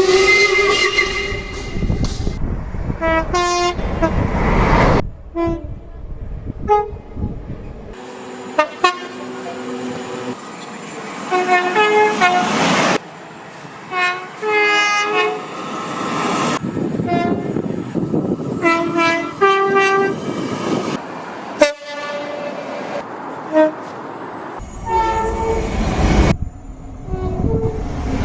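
A run of separate train horn recordings cut together: short horn blasts, often two notes in quick succession at different pitches, repeated several times. Between the horns there is steady rumbling noise from the trains.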